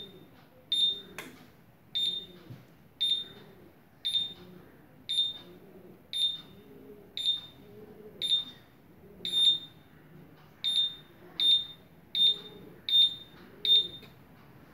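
Kusam-Meco KM 7015IN insulation resistance tester beeping about once a second while its 10 kV test runs. The beeps come faster for the last few seconds, then stop as the resistance reading comes up.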